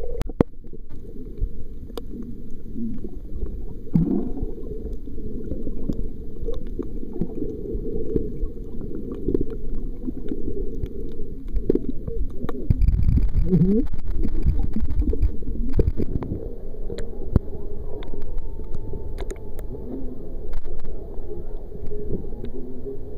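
Muffled underwater sound picked up by a waterproof camera submerged in shallow sea: a low, steady rush of moving water with scattered sharp clicks, louder for a few seconds about halfway through.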